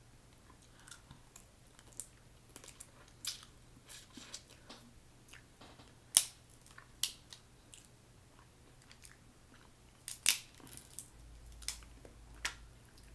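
Snow crab leg shells cracking and snapping as they are broken open and peeled by hand, in irregular sharp cracks with quieter crackling between; the loudest cracks come about six and ten seconds in.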